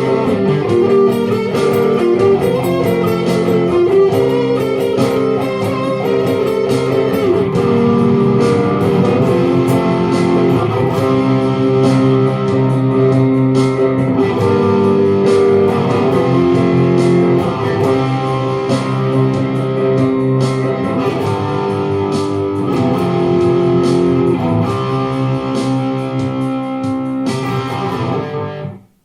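Layered guitar loops from a loop station playing an instrumental passage, over regular percussive hits; the music cuts off abruptly near the end.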